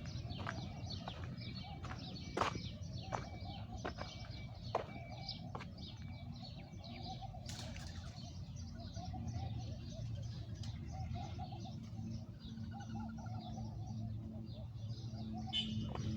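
Small birds chirping repeatedly in quick, scattered calls over a steady low rumble.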